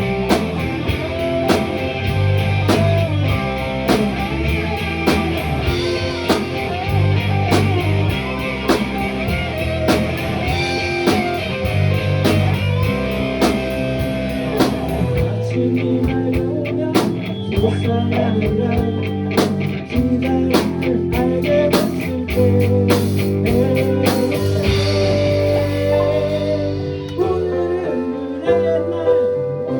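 A band playing a rock song, with drum kit, electric guitar and bass and some singing. The drums beat steadily, and the sound grows sparser about halfway through.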